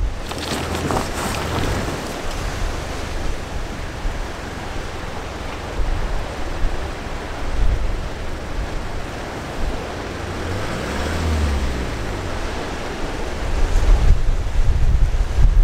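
Strong wind buffeting the microphone, with surf and a four-wheel-drive vehicle's engine running underneath; about ten seconds in, the engine note rises and falls, and the low wind rumble swells near the end.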